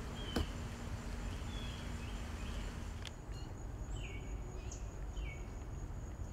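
A bird giving short, falling chirps every second or so over a steady outdoor background.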